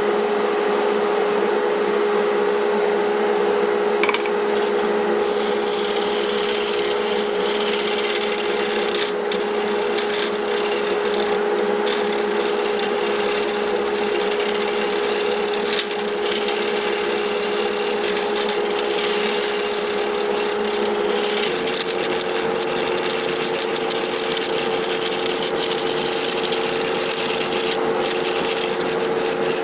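Wood lathe running with a hollowing tool scraping inside a spinning wet pecan hollow form: a steady hum under continuous scraping and shaving noise, the hum stepping up a little in pitch about twenty seconds in.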